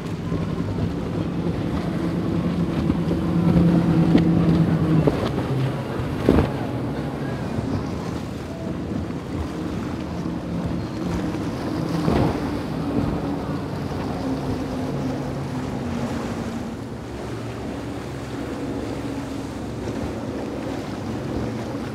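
Outboard-powered motorboats running at speed past the shore, engines droning over the rush of spray and chop, with wind buffeting the microphone. The engine note is loudest a few seconds in; two sharp thumps come about 6 and 12 seconds in, and a later engine note sinks slightly in pitch as a boat goes by.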